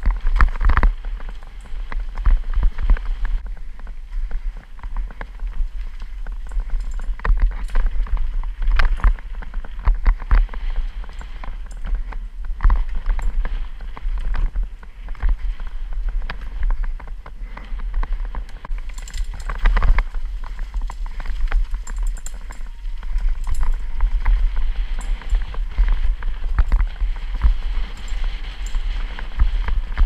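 Downhill mountain bike riding over a dirt trail, heard from a helmet-mounted camera: constant wind rumble on the microphone with tyre noise and frequent sharp knocks and rattles as the bike hits bumps.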